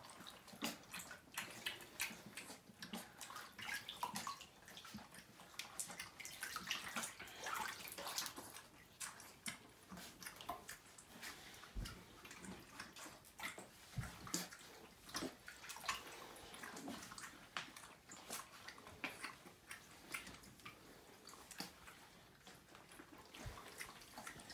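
Faint, irregular small splashes and drips of shallow bathwater in a whirlpool bathtub as Siberian husky puppies are wetted by hand and move about in it.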